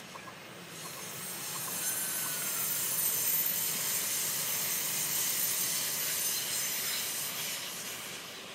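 Dutch NS electric passenger train passing at speed: a rush of wheels on rails with a high hiss, building up, loudest midway and fading away near the end.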